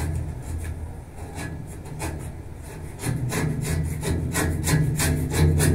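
Hand tool scraping at the foot of a wrought-iron balcony railing in rasping strokes. The strokes are sparse at first, then quicken to about three a second and grow louder about three seconds in.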